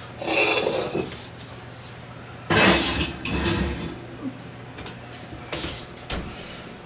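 Metal clattering at an oven: the wire rack rattles in the first second, the cast iron wok clanks down onto the rack and slides in about two and a half seconds in (the loudest sound), and the oven door knocks shut near the end.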